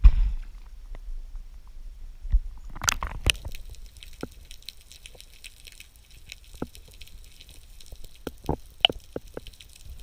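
Water sloshing and gurgling around a diver's camera at the sea surface, with a louder rush of water about three seconds in, then scattered short clicks and knocks under water.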